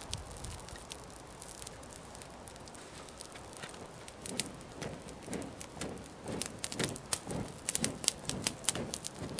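Dry grass tinder bundle burning after being lit with a match, with sharp crackles and pops that come more often from about halfway.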